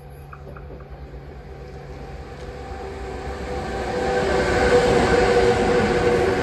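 A freight train double-headed by two Siemens Vectron electric locomotives approaching and passing: the rumble of wheels on rail and a steady whine from the locomotives build from about two seconds in, loudest as the locomotives go by.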